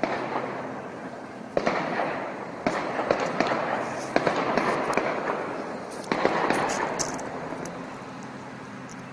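Gunfire in a shootout: a string of sharp shots at irregular intervals, the loudest about one and a half, two and a half, four and six seconds in, each trailing off in echo off the surrounding buildings.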